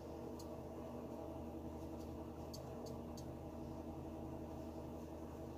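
Faint clicks and rustles of twine being worked with a plastic netting needle while tying net knots, over a steady low hum.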